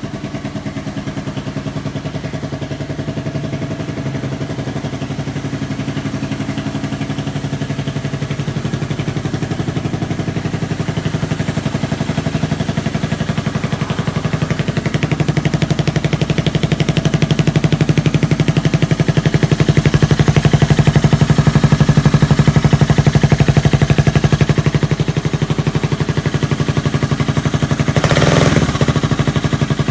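Yamaha Grand Majesty scooter's single-cylinder engine running through an OVER aftermarket muffler, its exhaust rising gradually to a higher, louder run through the middle and easing back later, with a short loud burst near the end.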